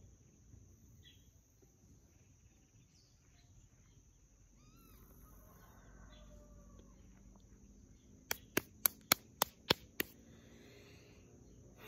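Seven quick, sharp hand claps, about four a second, starting a little past eight seconds in. Before them, a few short bird chirps over a steady high drone of insects.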